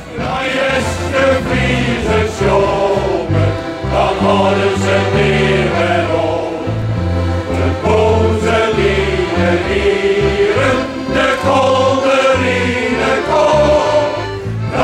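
Men's choir singing together, with a bass line stepping beneath the voices.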